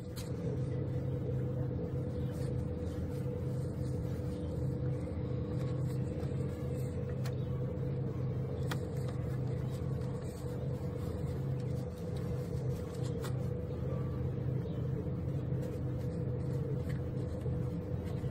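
Pressure washer running with a steady hum, spraying water to blast paint softened by stripper off wood.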